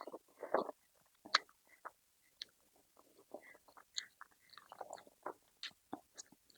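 Close-miked chewing of food, with short wet mouth clicks and smacks scattered irregularly throughout.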